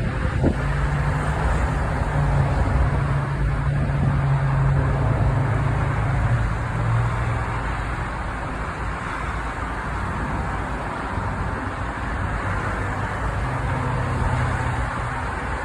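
Car driving along, with steady road and tyre noise and a low engine hum heard from inside the cabin. The hum eases off about halfway through and picks up again near the end.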